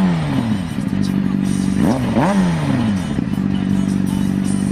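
Motorcycle engine idling steadily, with quick throttle blips where the revs jump up and sink back, once at the start and again about two seconds in.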